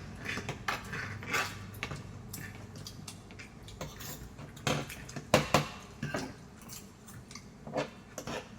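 Eating utensils clinking against bowls and plates in irregular light clicks, the loudest few a little past halfway.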